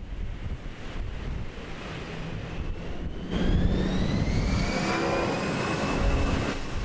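Wind rumbling on the microphone. About three seconds in, a motor grows louder with a whine that slowly rises in pitch.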